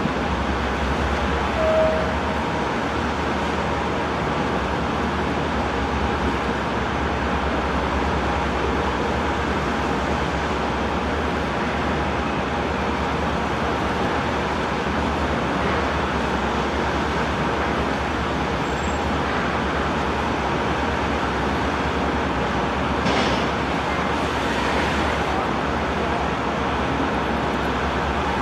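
Brødrene Aa 42 m carbon-fibre catamaran ferry's engines and waterjets running steadily while holding at the berth, the jets churning water at the stern. A constant low hum under an even wash of noise, with a brief burst of hiss about 23 seconds in.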